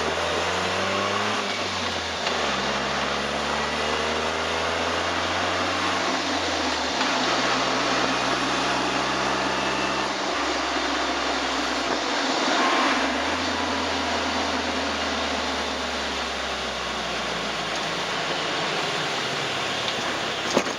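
Turbocharged car's engine running on the move, its pitch shifting abruptly a few times as if through gear changes, over a broad rushing noise; the recording is meant to catch an abnormal noise that the owner suspects comes from the suspension or from near the turbo. A brief sharp knock just before the end.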